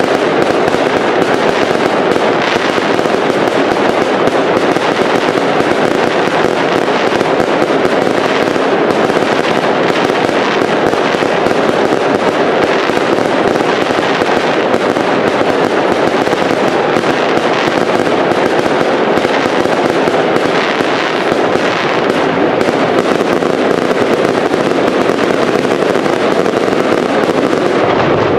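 Aerial fireworks going off in a dense, unbroken barrage: many bangs and crackling pops run together into one continuous crackle, steady in loudness throughout.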